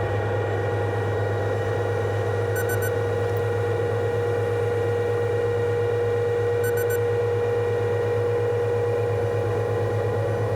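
Steady machine drone with a constant whine, as heard inside a running combine's cab. A quick triple beep from a cab alarm or monitor sounds three times, about every four seconds.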